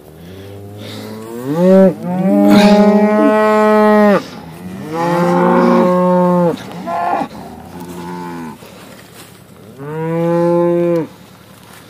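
Red Angus cattle mooing loudly, several long drawn-out moos one after another.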